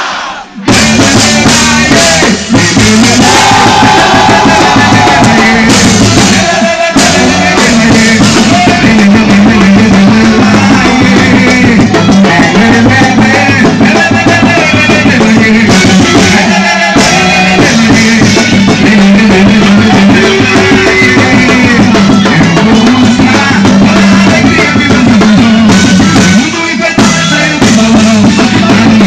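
Loud quadrilha junina music with a driving drum beat, cutting out for an instant just after the start and then playing on.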